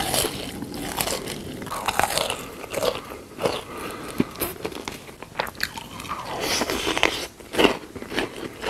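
Close-miked eating of crispy fried chicken drumsticks: irregular crunching bites into the coating, mixed with chewing.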